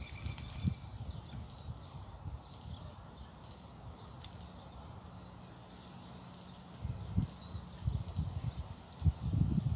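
Steady high-pitched chirring of an insect chorus in the background, with a few low bumps and rumbles near the end.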